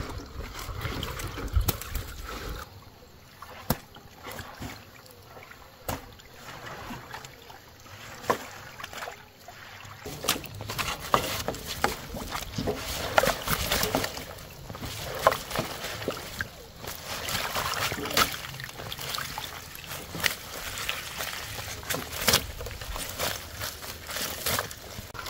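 Water splashing and sloshing, with many scattered sharp knocks and clicks, growing busier about ten seconds in.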